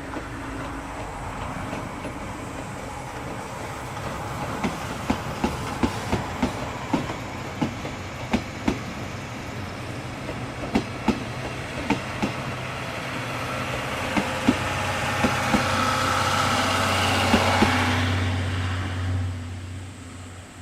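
The coaches of a steam-hauled passenger train rolling past, wheels clacking over rail joints at irregular intervals while the rumble grows louder and then fades. A steady low hum comes in over the last few seconds.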